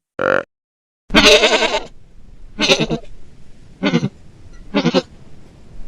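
Goat bleating: a brief call at the start, a longer bleat about a second in, then three shorter bleats about a second apart, over a faint background hiss.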